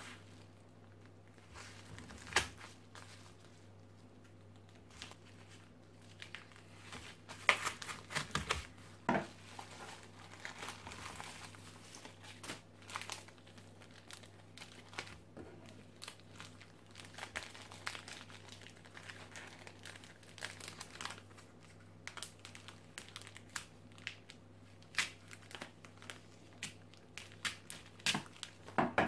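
Crinkling and tearing of a padded paper mailer and a clear plastic bag as they are slit with a knife and opened by hand, in scattered irregular bursts of crackle with a few sharper ticks.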